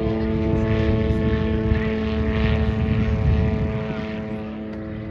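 Propeller airplane engine running at a steady pitch, getting a little quieter near the end.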